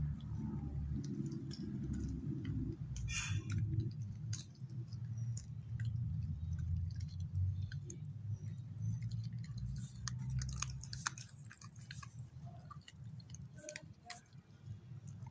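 Beagle chewing raw chicken breast bones: irregular crunches and sharp clicks as the bones break. A low rumble runs underneath and fades in the last few seconds.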